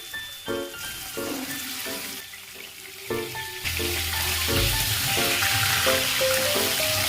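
Background music with piano-like notes over a steady hiss that grows much louder about halfway through.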